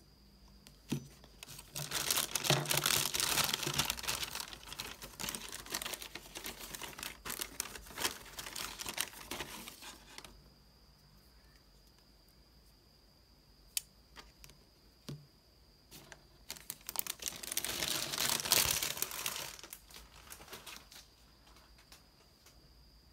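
Clear plastic packaging bags crinkling and rustling in two long spells while hair claw clips are handled and unwrapped, with a few sharp clicks in between.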